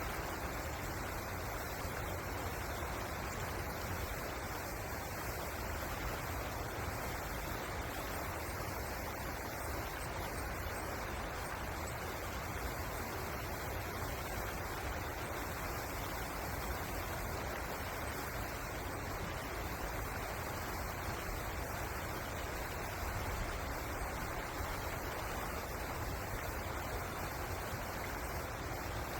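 Steady rush of flowing river water, an even noise with no change in level.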